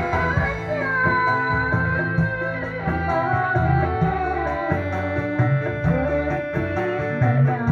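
Small band playing an instrumental passage of a pop song: a held electronic keyboard melody over guitar and a pulsing hand-drum and bass rhythm. Recorded straight from the room without recording gear, so it sounds rough.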